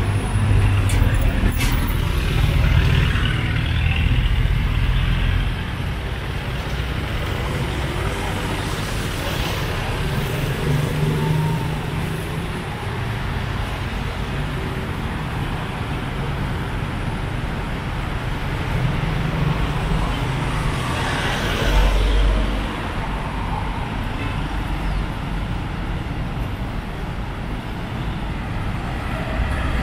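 Street traffic going by: a steady wash of passing cars and other road vehicles, with one vehicle passing louder about three-quarters of the way through.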